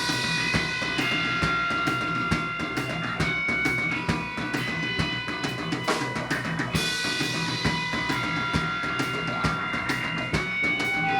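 Rock band playing an instrumental passage: a drum kit keeps a steady, driving beat under sustained held notes that change every couple of seconds.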